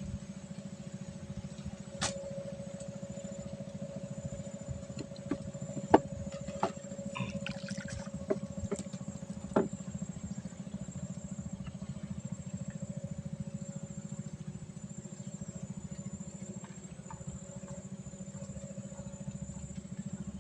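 Small boat engine running steadily with a fast low throb, with a few sharp knocks about 2, 6, 8 and 10 seconds in.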